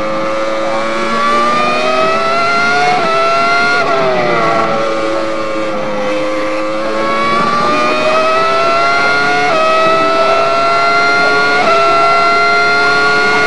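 Ferrari engine running at high revs. Its pitch climbs, drops sharply about four seconds in like a gear change, sinks, then climbs again in small steps.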